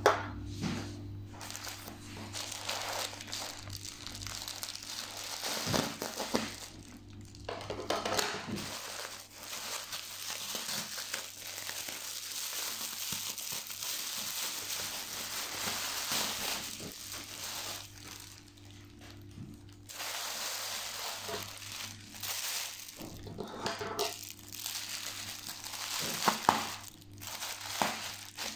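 Plastic packaging being handled: the thin plastic of a courier mailer and the wrap inside it crinkling and rustling in uneven bursts, with short pauses, including one of about two seconds.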